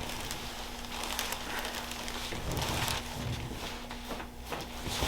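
Faint rustling and shifting movement with a steady low hum underneath.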